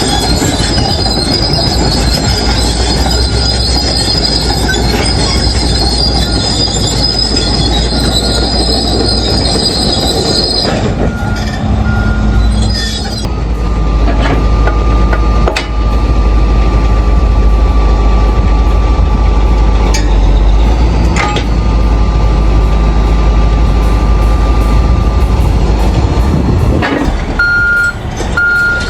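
Heavy machinery working: engines running loud and steady, with a high-pitched metallic squeal for about the first ten seconds, and reversing beeps starting near the end.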